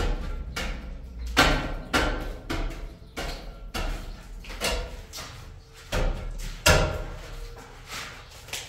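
A long wooden pole jabbing at an old plaster ceiling, about a dozen irregular knocks, one or two a second. Each knock is followed by the short clatter of plaster breaking loose from the reed lath.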